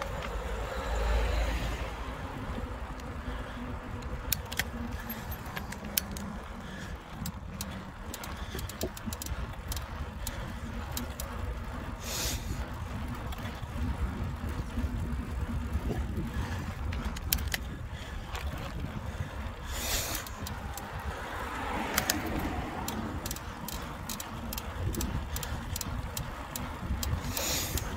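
Carrera Kraken mountain bike being ridden over a paved footpath: a steady low rumble of tyres and wind, with frequent sharp rattles and clicks from the bike as it goes over bumps, and a few brief louder swells of noise.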